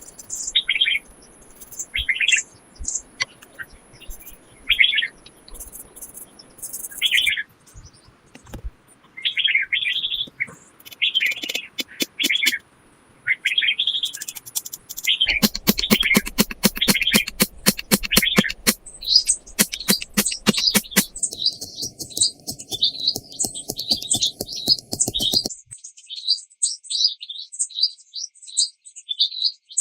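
Small birds chirping repeatedly in short, quick calls, higher-pitched in the last few seconds. About halfway through comes a dense run of sharp clicks or crackles lasting several seconds.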